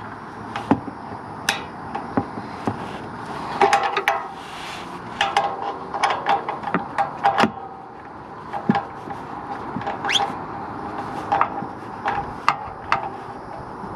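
Hand tools clicking and clinking against metal on the exhaust as bolts are snugged up, in short irregular taps with a quicker run of clicks about five to seven seconds in.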